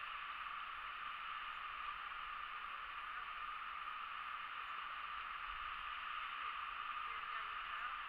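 Steady rushing of a fast-flowing river running past the bank, an even hiss of water with no breaks.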